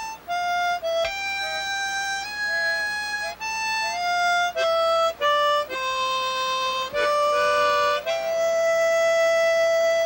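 A slow solo melody on a wind instrument, one held note after another, the last note held for nearly two seconds.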